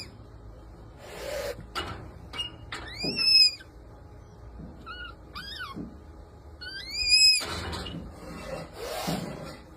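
Red panda giving high-pitched squealing calls, each bending in pitch: one about three seconds in, two short ones near five and six seconds, and a longer one around seven seconds. Short noisy bursts fall between the calls.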